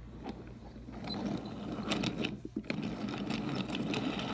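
Wooden toy Amtrak passenger train rolling along wooden toy track, a rattling run that grows louder from about a second in, with several sharp clicks along the way.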